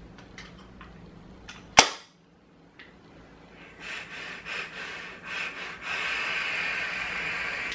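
A sharp click about two seconds in, then a long drag on a vape mod with a rebuildable dripping atomizer: air hissing through the atomizer's airflow, uneven at first and then steady for about two seconds, cutting off near the end.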